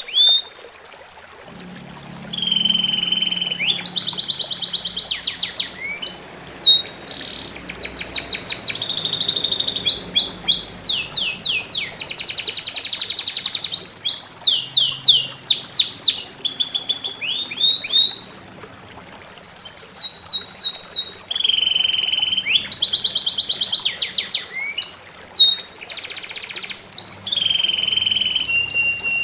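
A songbird singing loud, rapid phrases of fast repeated chirps and trills, high-pitched, with brief pauses about a second in and again two-thirds of the way through. Faint trickling water runs underneath.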